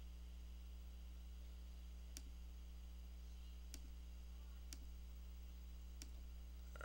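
Four faint computer mouse clicks, spaced about a second apart, placing the points of a Bezier mask in editing software, over a steady low hum.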